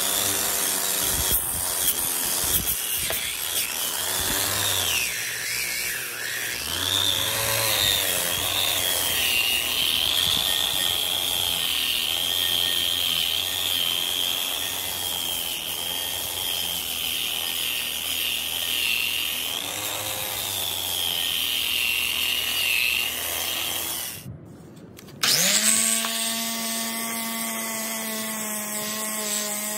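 Corded angle grinder with an abrasive disc running against the steel pipes and muffler of an old exhaust, stripping rust and grime. Its high whine wavers and dips as the disc bears on the metal, drops out for about a second near the end, then comes back steadier.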